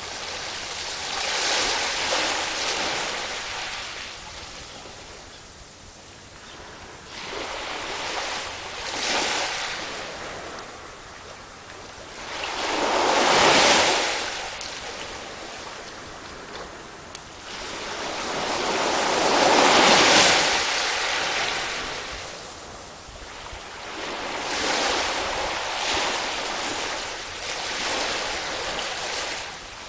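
Surf: waves breaking and washing in one after another, each surge swelling and fading over a few seconds, the two loudest around the middle.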